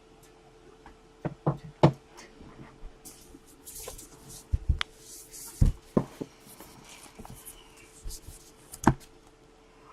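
Hands handling things on a tabletop: a scattering of sharp knocks and taps, with bursts of crinkly rustling about three to six seconds in.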